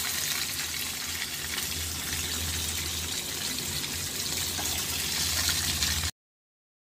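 Battered Bombay duck fish fritters deep-frying in hot oil in a small pan: a steady sizzle. It cuts off abruptly about six seconds in.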